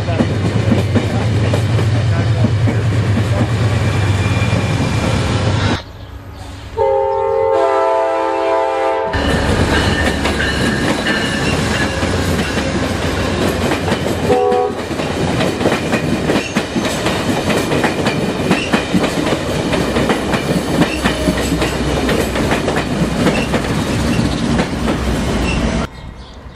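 Amtrak passenger train passing close by: a steady rumble and the clatter of its wheels over the rail joints. About seven seconds in, a locomotive air horn sounds a multi-note chord for about two seconds. A short horn note comes near the middle.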